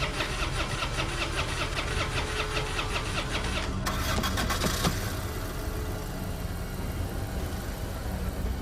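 A car's starter cranking the engine over and over in a quick, even rhythm without the engine catching; the cranking pattern changes about four seconds in.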